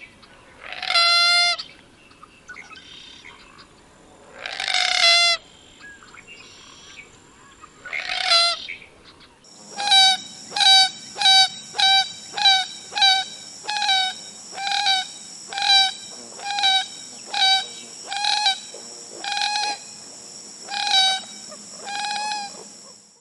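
Common gallinule calling: three separate clucking calls a few seconds apart, then a long series of about seventeen short notes, roughly one and a half a second, slowing and spacing out toward the end.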